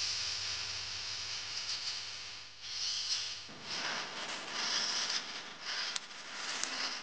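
RC rock crawler driving through dry straw and grass: a rustling, crackling hiss from the stalks under its tyres that comes and goes in surges, with a couple of sharp clicks near the end.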